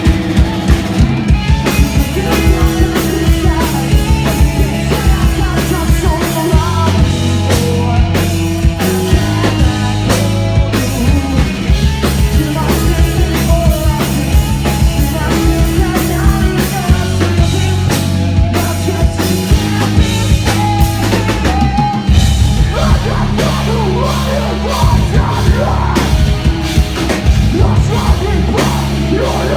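Rock band playing live: a loud drum-kit beat with held bass and guitar notes that change every few seconds.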